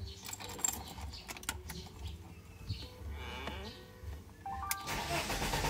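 Ignition being switched on in a BMW E36 with an M43 engine at the start of a starting attempt: faint clicks, a few short tones about four and a half seconds in, then a louder steady rushing noise from about five seconds in as the warning lights come on.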